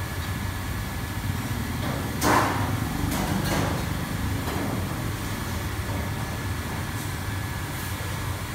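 Busy commercial kitchen: a steady low rumble of the range hood and wok burners, with sharp metal clanks of pans and utensils at the wok. The loudest clank comes about two seconds in, and a couple of lighter ones follow about a second later.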